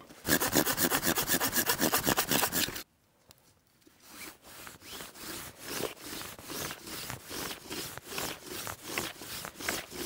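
Wood being worked by hand in rasping, rubbing strokes. A loud, fast, even run of strokes cuts off suddenly just before three seconds in. After a second's pause comes a quieter, steady run of rhythmic rubbing.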